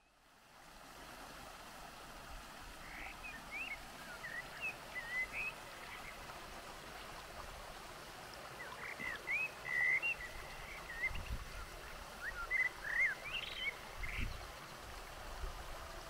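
Shallow mountain stream running steadily over rocks, fading in at the start. Bursts of short, high chirping calls come a few seconds in, again around the middle and again near the end.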